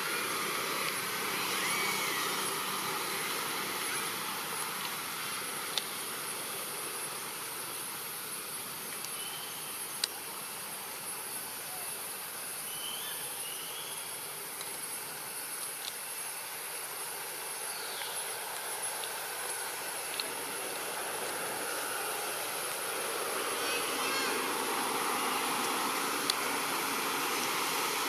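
Steady outdoor ambience: a constant high, thin insect drone over a wide even hiss, with a few faint short chirps and squeaks and several sharp clicks scattered through it. The hiss grows slightly louder near the end.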